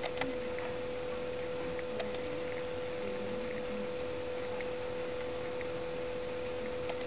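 Computer mouse clicks, in quick pairs at the start, about two seconds in, and near the end, over a steady hum and hiss from the recording microphone.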